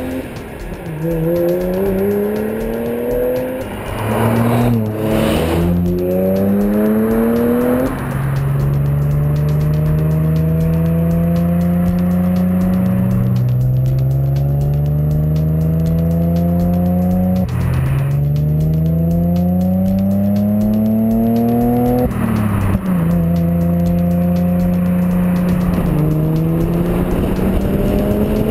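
Audi with a Scorpion aftermarket exhaust system accelerating hard through the gears. The exhaust note climbs steadily in pitch and drops back at each gear change, over and over.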